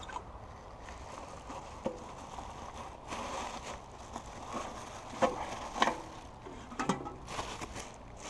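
Handling noise as a plastic-wrapped rack of pork ribs is pulled out of a mailbox: plastic bag crinkling, with a few sharp knocks and clicks from the mailbox, over steady outdoor background noise.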